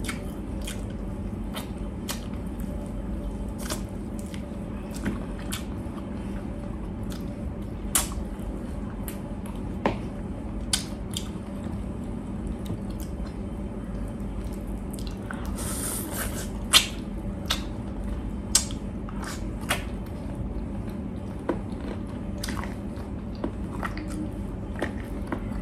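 Close-miked mukbang eating: wet chewing, lip smacks and squishy handling of braised pork ribs and rice eaten by hand, with scattered sharp clicks over a steady low hum. A brief hiss comes about two-thirds of the way through.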